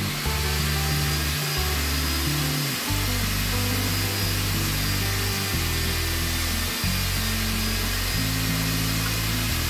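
Lotus table saw running steadily, its spinning blade ripping a wooden board lengthwise into a thin strip.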